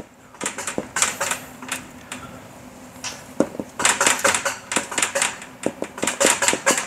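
Marker pen writing on a whiteboard: quick taps and scratchy strokes of the felt tip against the board. There is a short run of strokes at the start, a lull, then a denser run from about three and a half seconds in.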